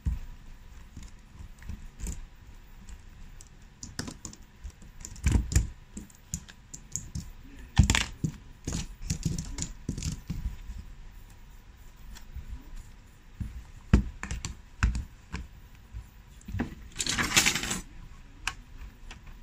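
Irregular clicks, knocks and light clatter as screen-press clamps are taken off a tablet and set down on a silicone mat. Near the end comes a longer scraping rustle as the tablet's back cover is handled into place.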